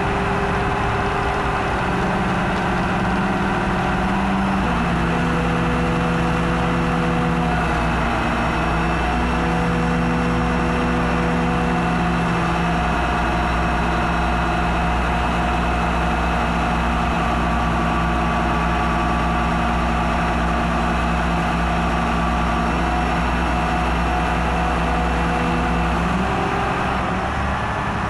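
Truck-mounted mobile crane's diesel engine running steadily with a deep rumble while the crane holds a suspended precast concrete girder segment on its hook. The engine note shifts in steps several times and drops near the end.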